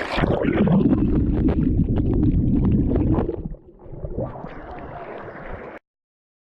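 Muffled sloshing and gurgling of river water close to the microphone, a loud low rumble with small bubbly clicks. It drops away about three and a half seconds in, comes back more quietly, then cuts off abruptly near the end.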